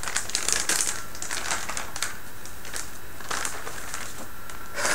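Plastic packaging crinkling and rustling in irregular crackles as it is handled around a boxed motherboard.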